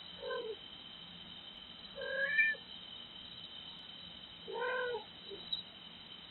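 A cat meowing three times, about two seconds apart; the middle meow is the longest and loudest, and the last rises and falls in pitch. Behind it runs a steady high-pitched trill of night insects.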